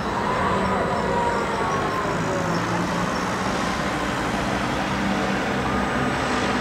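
Steady outdoor noise of road traffic and a funfair, with faint wavering tones over it.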